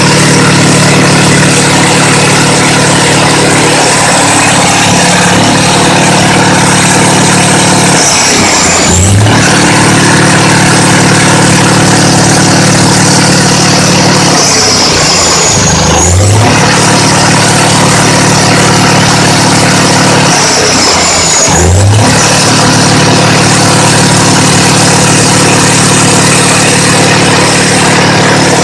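Freshly rebuilt large turbo diesel engine running on test with a steady drone. Three times, about six seconds apart, its speed briefly dips and swings back up.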